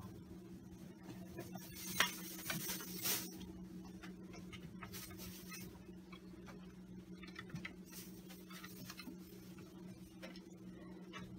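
Faint scratching and tapping of kitten claws on a wooden chair, with a sharp click about two seconds in and a few more just after, over a steady low hum.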